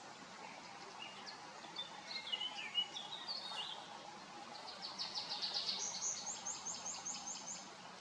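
A songbird singing over a steady background hiss: a short, varied twittering phrase, then a fast run of repeated notes that steps higher partway through and stops just before the end.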